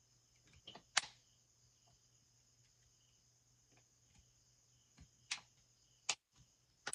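Sharp plastic clicks from a smartphone's housing being handled and pressed along its edge, four separate clicks with the loudest about a second in. A faint steady hum with thin high tones runs underneath.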